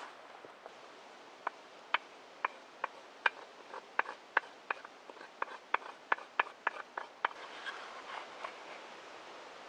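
A knife chopping food on a board: a series of about fifteen sharp knocks, irregular at two to three a second, which stop about three-quarters of the way in. Softer scraping sounds follow near the end.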